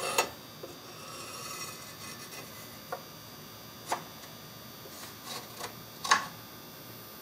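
Hard, light clicks and taps of an AR-15 handguard knocking against the barrel and upper receiver as it is slid on and test-fitted. There are a handful of separate clicks spread over several seconds, the loudest near the start and about six seconds in, with soft handling rustle between them.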